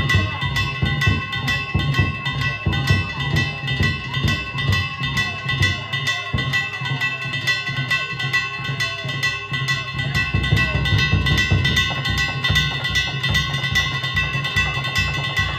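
Danjiri festival music: small hand gongs struck in a fast, steady rhythm with a ringing tone, over the beat of a large taiko drum.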